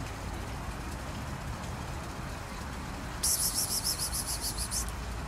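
A high-pitched rapid trill of about five pulses a second starts about three seconds in and lasts under two seconds. It sits over a steady low background rumble.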